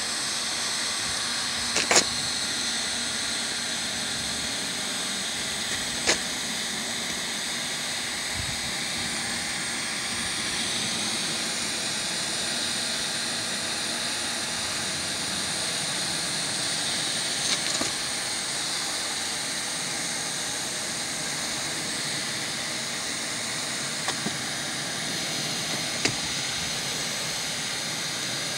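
Hand-held hot-air welding gun blowing steadily as it heat-seals the edge of a single-ply roofing membrane flashing. A few short clicks come through it.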